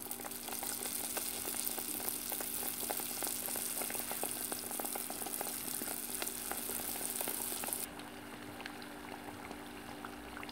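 Dough balls for Tunisian fricassé deep-frying in hot oil in a pot: a steady sizzle full of small crackles and pops. The hiss drops suddenly about eight seconds in.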